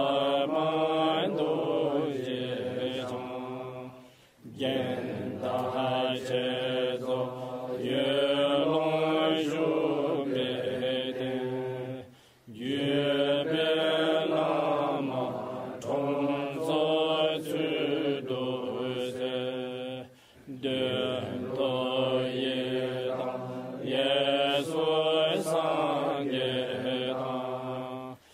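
A man chanting a Tibetan Buddhist prayer to a slow melody, holding long notes in phrases of about eight seconds with a short break for breath between them.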